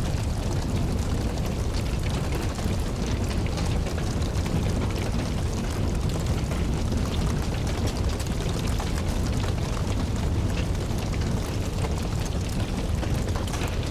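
Wood fire crackling steadily, a continuous run of small sharp pops over a low rumbling roar.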